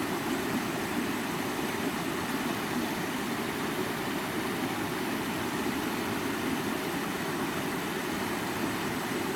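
Water of a stream running and rushing, a steady even sound.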